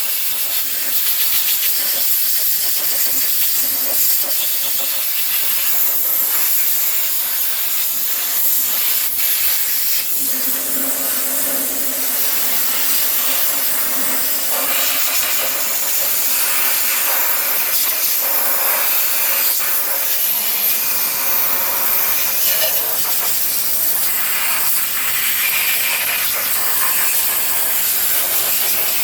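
Steady, loud hiss of a high-pressure spray cleaning grime off an engine part.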